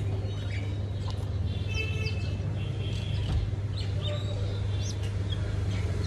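Baby birds chirping in short, high, scattered calls over a steady low hum.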